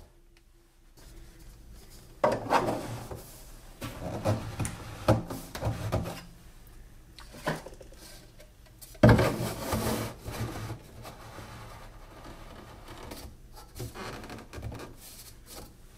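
A plastic pipe fitting being handled and pushed onto a 3D-printed plastic adapter on a dust-collector cyclone inlet: plastic rubbing and scraping with irregular knocks, the loudest about nine seconds in.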